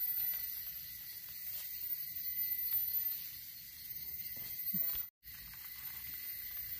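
Steady high-pitched hiss of forest insects, with faint rustling and small clicks from dry leaves and twigs as mushrooms are picked from the leaf litter; the sound drops out briefly about five seconds in.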